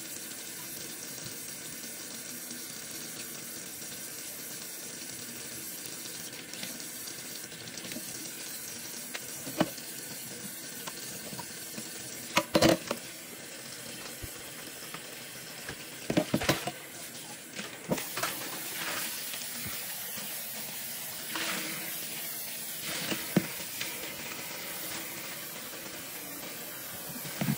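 Kitchen tap running steadily into a metal bowl of water in a stainless steel sink. A few short, sharp clicks and knocks come now and then over the running water.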